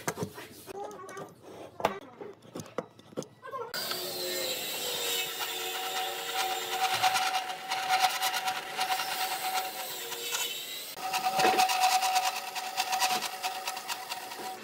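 A few light knocks as a pine board is handled, then about four seconds in a band saw starts cutting through the pine, a steady whine with the rasp of the blade in the wood. The cut eases off briefly near the two-thirds mark and then continues.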